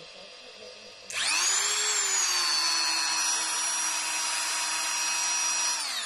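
Dremel 3000 rotary tool switched on about a second in: its motor spins up to a high whine, peaks, then settles at a steady speed. It starts winding down just before the end as it is switched off.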